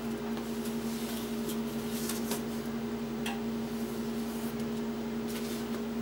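Cardboard sheet covered with thermal paper rustling and scraping softly, with a few light clicks, as it is slid out of a microwave oven. A steady electrical hum runs underneath.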